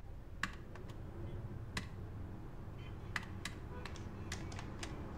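Plastic keys of a desktop electronic calculator being pressed, about a dozen short clicks at an uneven pace.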